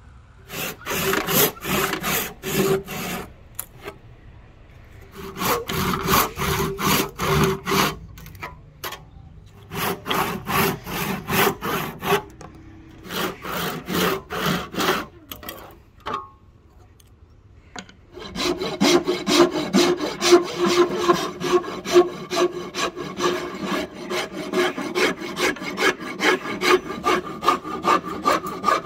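A hand tool worked back and forth on a rosewood handle blank, sawing or rasping at about three strokes a second. The strokes come in four short runs with pauses between them, then run on without a break from about two-thirds of the way in.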